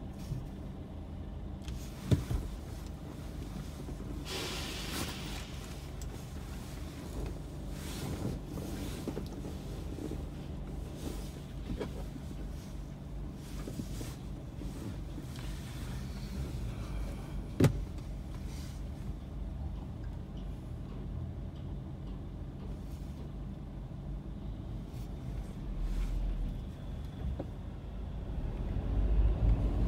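Car engine idling with a steady low hum, heard from inside the cabin while stopped in traffic, with two sharp clicks about two seconds and eighteen seconds in. Near the end, engine and road noise rise as the car pulls away.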